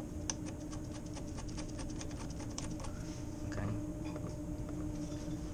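Light, irregular metallic clicking and scraping as a steel threaded rod is worked by hand through the bolt lugs of a butterfly valve body. A steady low hum runs underneath.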